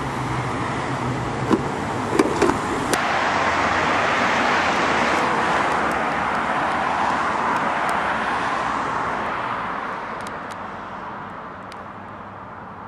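A car driving past on the street: a rushing noise that builds, is loudest mid-way, then fades away. A few sharp clicks about two seconds in.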